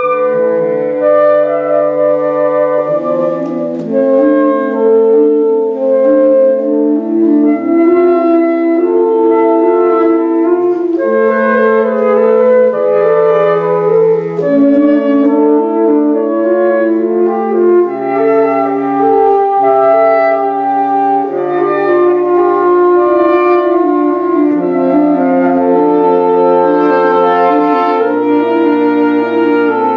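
Saxophone quartet (soprano, alto, tenor and baritone saxophones) playing together live: several voices holding notes and moving in overlapping lines, forming slowly shifting chords.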